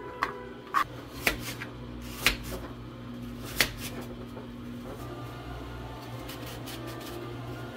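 Kitchen knife slicing an apple and knocking down onto a plastic cutting board: a handful of sharp knocks in the first few seconds, over a steady low hum.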